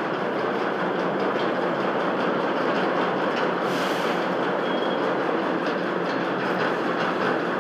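Semi-automatic grain weigh-filling machine running with a steady, dense mechanical rattle as grain is fed down its chute into a bag held at the spout. A short hiss breaks in about four seconds in.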